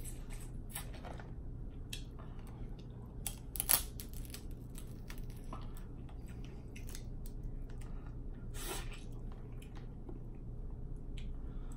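Snow crab leg shells cracking and being picked apart by hand, with wet chewing and sucking of the meat: scattered crackles and clicks, the loudest about four seconds in and another near nine seconds. A steady low hum runs underneath.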